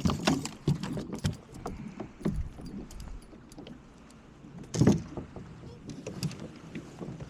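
Scattered knocks and clatter on a fishing boat, with one louder thump about five seconds in.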